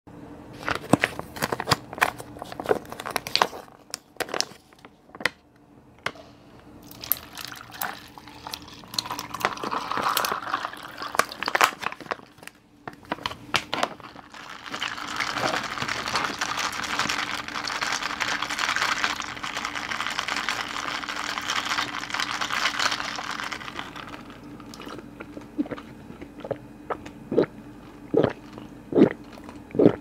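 Plastic crinkling and ice clicking as a coffee pouch and a plastic cup of ice are handled. About fifteen seconds in, iced Americano is poured from the pouch over the ice with a steady splashing hiss for about ten seconds. Gulps follow near the end as the coffee is drunk.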